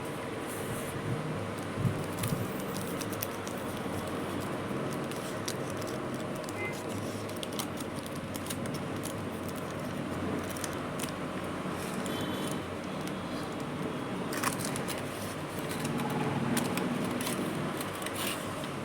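Foil and paper wrapper of a chocolate bar crinkling and crackling as it is handled, in scattered sharp clicks over a steady background hum.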